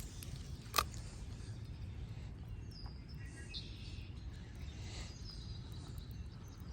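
Faint outdoor background: a steady low rumble with a few faint bird chirps, and one sharp click about a second in.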